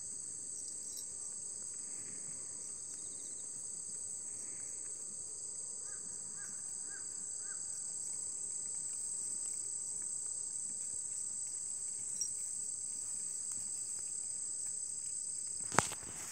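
Steady high-pitched insect chorus trilling without a break. Near the end there is a sharp knock as the phone is handled.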